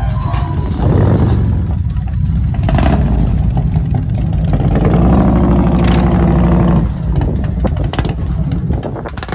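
Loud engines of heavy touring motorcycles riding past, revving up and pulling away with the pitch rising through the middle. A run of sharp clattering clicks comes near the end.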